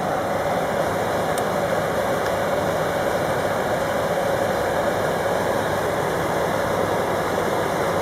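Indesit tumble dryer running: its motor turning the drum and driving the fan, a steady whirring hum.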